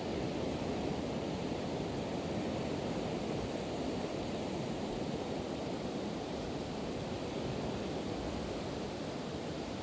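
Steady rush of Pacific Ocean surf, an even noise without distinct wave crashes.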